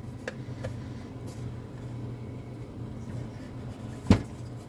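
Two light clicks, then a single sharp knock about four seconds in, from the sheet-metal casing of a variable AC transformer being handled and seated as it is reassembled, over a steady low hum.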